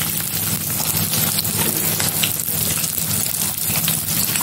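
Chopped onion sizzling and crackling in hot oil in a metal kadhai, the onion frying for the tempering. A low steady hum runs underneath.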